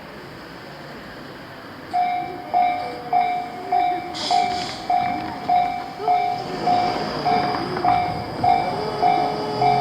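A railway level-crossing warning bell starts up about two seconds in: a repeated high ding, not quite two strokes a second, warning of an approaching train. Beneath it a train runs with a wavering, gliding mechanical sound, and a short hiss comes around four seconds in.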